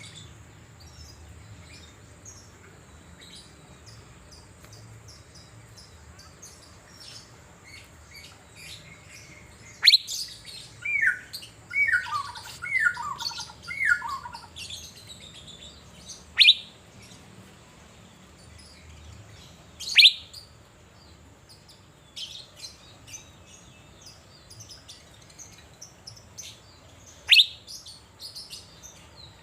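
Asian fairy-bluebird (cucak biru) calling, with loud, sharp downward-sliding notes every few seconds. About eleven seconds in comes a quick run of four falling whistles, and faint chirps are scattered in between.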